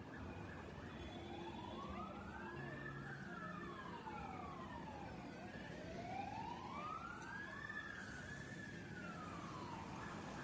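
Fire engine siren on wail, rising and falling slowly, one cycle about every four seconds, each sweep doubled by a second one trailing just behind, over the low hum of idling traffic.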